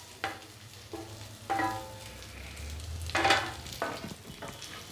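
Half-fried elephant foot yam batons pushed with a spatula from a steel plate into hot oil in a pan, sizzling, with several scrapes and clatters of metal on metal, some briefly ringing; the loudest clatter comes about three seconds in.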